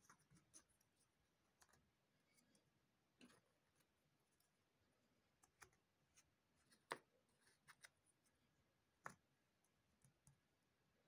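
Faint, irregular clicks and taps of cardboard jigsaw puzzle pieces being picked up and pressed into place, the sharpest tap about seven seconds in.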